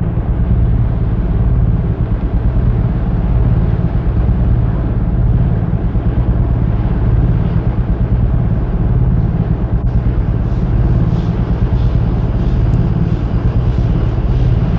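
Steam-hauled train working through a railway yard: a loud, steady low rumble, with a rapid beat coming through from about ten seconds in.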